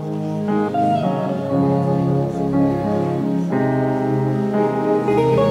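Instrumental worship music with no voice: sustained chords that change about half a second in and again about three and a half seconds in.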